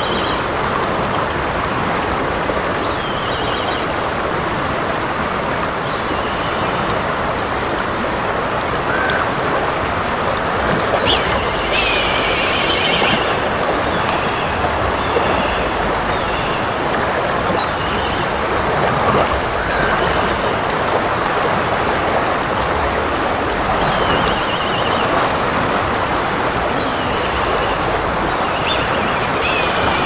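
Fast mountain river rushing over its bed in a steady, dense roar. A few short high bird calls sound above it, the clearest about twelve seconds in.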